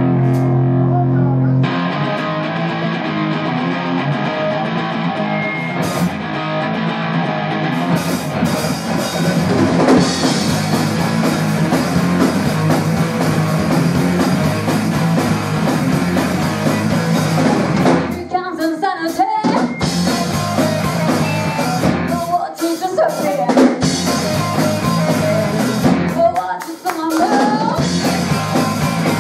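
Live rock band playing: two hollow-body electric guitars through Randall amps, electric bass and a Mapex drum kit. It opens on a held chord, the full band comes in about two seconds in, and near the end the band stops short a few times between bursts.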